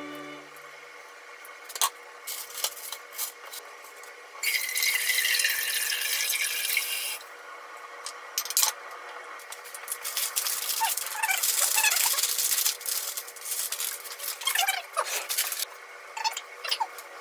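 Close-up food-prep sounds: kitchen scissors snipping through a bunch of radish sprouts with a few sharp clicks, then a few seconds of crisp rustling. After that come soft clicks and scrapes as the sprouts are handled and shredded daikon is tossed with chopsticks on a plate.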